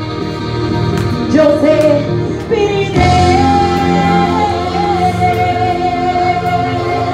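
A woman singing wordless notes into a microphone over instrumental backing music. After a couple of short notes she holds one long note from about three seconds in.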